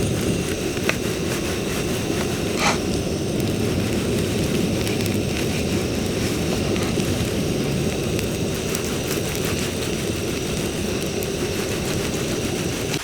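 Wood fire burning in a campfire stand: a steady low rush of flame with a few sharp crackles and pops.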